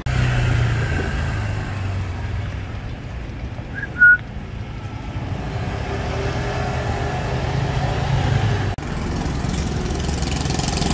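Motor scooter idling with a steady low hum. About four seconds in, one short high whistle sounds and is the loudest thing heard.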